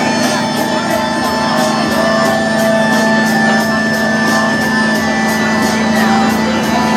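Electronic music played live from a laptop: a steady low drone with sustained higher tones layered above, and a quick, even ticking pattern running through it.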